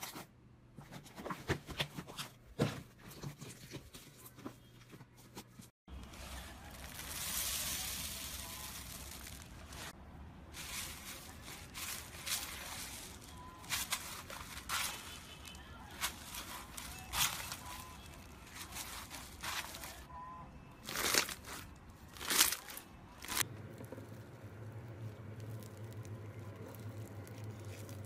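Hands squeezing and kneading slime: sticky squishes, clicks and pops. Then slime pressed into loose foam beads, with a rustling hiss and scattered crackles and crunches.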